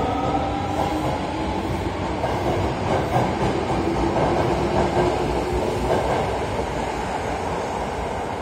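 Kita-Osaka Kyuko 8000 series subway train pulling along the platform, its traction motors giving a whine that climbs in pitch as it gathers speed over rumbling, clattering wheels on the rails. The whine fades out about six seconds in, leaving the wheel and rail noise.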